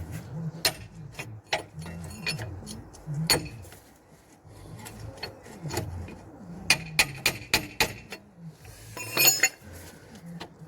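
Sharp clicks and clinks of small parts and tools being handled while a tabbed part is worked into place on a car's front hub assembly, with a quick cluster of ringing metallic clinks about nine seconds in.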